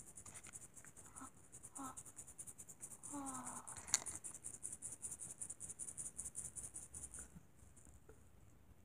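Thin plastic blind-bag packaging crinkling and rustling in the hands as it is opened, a fast, fine crackle lasting about seven seconds with one sharper click about four seconds in. A few faint short vocal sounds come through early on.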